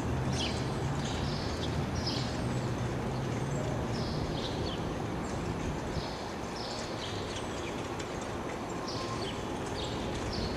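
Harness-racing trotter pulling a sulky on a dirt track, heard faintly under steady outdoor noise, with short high chirps repeating about once a second.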